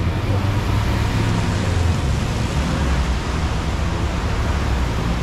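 Steady street traffic noise: a low rumble with an even hiss over it.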